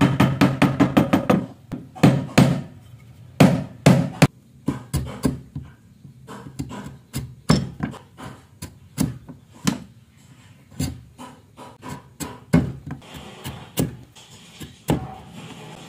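Steel wood chisel being struck into a hardwood beam: a quick run of sharp taps, then several heavier single blows a second or so apart. Lighter clicks follow, and near the end there is a soft scraping as the chisel pares the shoulder of the lap joint.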